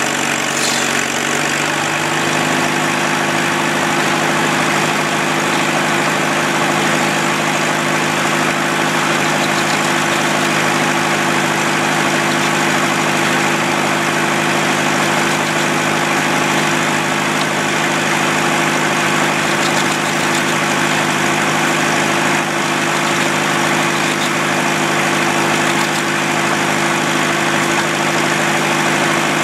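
Early-1900s belt-driven shingle mill running steadily: a loud, even machine hum and rush from the spinning saw and its drive, with the low hum shifting pitch and settling about two seconds in.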